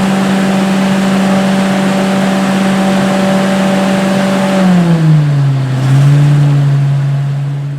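An engine running steadily at high speed; about five seconds in its pitch drops and it settles at a lower speed before fading out.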